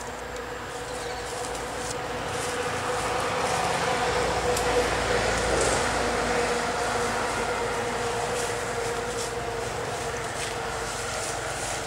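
A passing vehicle: a steady engine and road noise that swells to its loudest about five seconds in, then slowly fades.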